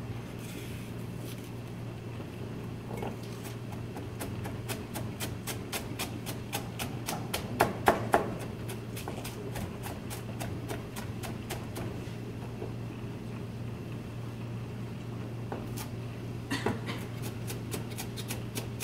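Chef's knife chopping a vegetable on a plastic cutting board: quick, even strokes at about five a second in two runs, with a few louder knocks about eight seconds in.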